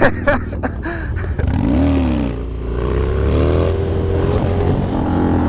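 Harley-Davidson Dyna V-twin through a Bassani Road Rage 2-into-1 exhaust: a quick rev about two seconds in, then the bike pulls away with the engine note rising and settles into a steady run.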